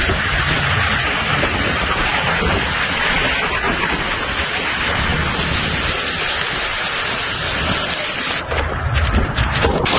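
Severe windstorm with torrential rain: a steady roar of wind-driven rain, with wind buffeting the microphone as a low rumble.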